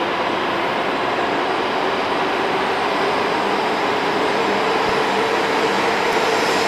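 E5 series Shinkansen pulling out of the station, its cars rolling past close by. The steady running noise carries a faint hum and grows slightly louder as the train gathers speed.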